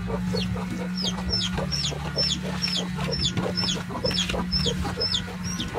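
Chickens clucking, with a run of high, falling peeps about two a second over lower clucks and a steady low hum.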